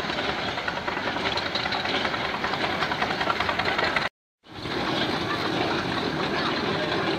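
Steam road rollers working in the ring: a steady, dense mechanical clatter of fast ticks, with a brief break about four seconds in.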